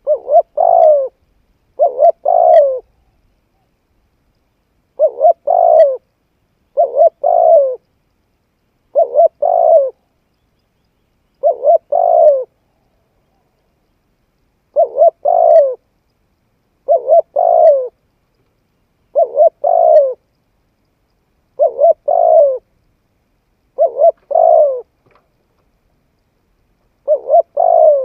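Spotted dove cooing: a short phrase of a few coo notes, about a second long, repeated about a dozen times, mostly two to two and a half seconds apart, with two longer pauses. The gaps are dead silent.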